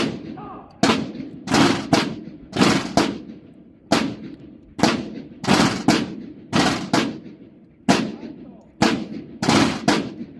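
The drums of a military drum and bugle corps striking loud accented beats, often in quick pairs, each hit ringing out with echo.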